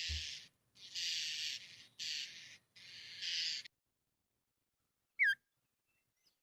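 Recorded mockingbird song: four harsh, raspy phrases in a row, then after a pause a single short, clear whistled note that sweeps in pitch.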